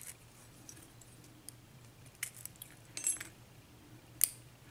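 A few scattered, sharp little metal clicks and clinks, the sharpest about four seconds in: the top pins (spool and standard driver pins) and springs being taken out of a six-pin lock cylinder.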